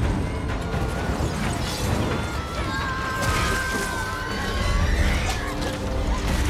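Action-film battle soundtrack: music over a dense low rumble of crashes and impacts, with a high held tone for about a second and a half near the middle.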